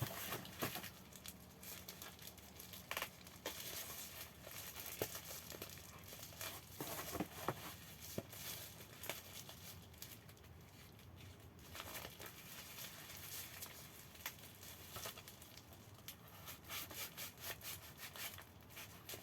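Product packaging being torn open and crinkled by hand, with irregular crackles and sharp rustling snaps.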